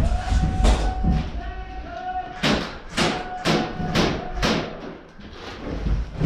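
Airsoft gunfire while pinned down: a string of about six sharp snaps, roughly two a second, through the middle, with thuds and low rumble on the microphone.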